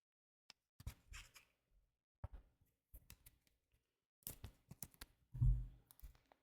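Trading cards and plastic card sleeves being handled: scattered light clicks, rustles and scrapes, with one dull thump about five and a half seconds in, the loudest sound.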